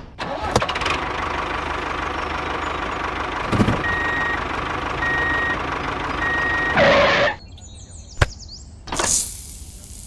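Tractor engine sound running steadily, with three short reversing beeps about a second apart as the tractor backs up. The engine sound stops after about seven seconds, followed by a sharp click and a short hiss near the end.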